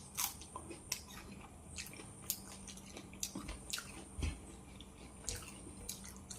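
Close-miked chewing of fried fish: irregular wet mouth clicks and smacks, a few each second, over a faint steady hum.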